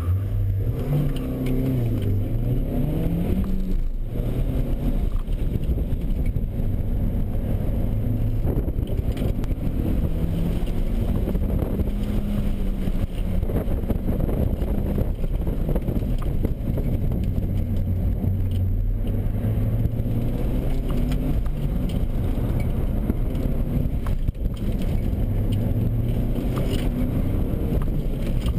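Audi A4's engine heard from inside the cabin, its pitch rising and falling as the car accelerates and slows through an autocross course, over steady road noise.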